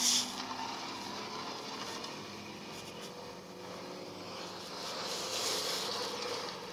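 Lamborghini supercar engine running with a steady tone, swelling a little about five seconds in and easing off near the end. A short burst of noise comes right at the start.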